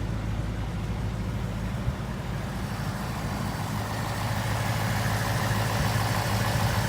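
2018 Ford Mustang GT's 5.0 Coyote V8 idling steadily and smooth-running. From about three seconds in it grows slightly louder, with a higher whirr coming up.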